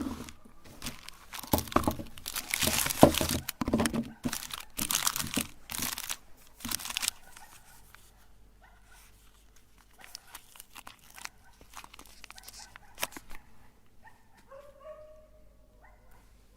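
Crinkling and tearing, loud and irregular for the first several seconds, then fainter clicks and handling noises; a faint whine sets in near the end.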